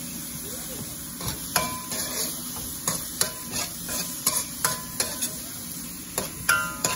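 A metal spoon stirs and scrapes diced vegetables frying in oil in a pan on a gas burner, clinking against the pan again and again over the sizzle.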